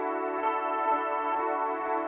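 Instrumental background music: sustained, layered tones with a soft note struck about twice a second, and no bass or vocals.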